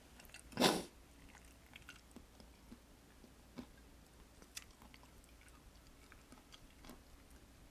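A person chewing and biting food close to the microphone. One short, louder bite or mouth smack comes just under a second in, followed by quiet chewing with a few faint scattered clicks.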